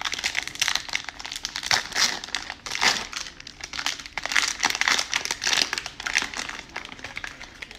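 Plastic cellophane wrapper of a baseball card cello pack being torn open and crinkled by hand: a steady run of crackling, with louder rips and crinkles every second or so.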